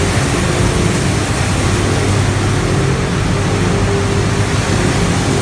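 Plastic recycling line machinery running: steady, loud machine noise of motors and equipment, with a low hum underneath.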